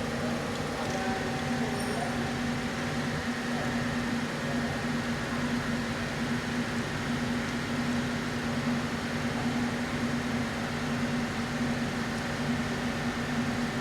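Steady mechanical hum with a constant low tone and a fainter high whine, unchanging throughout.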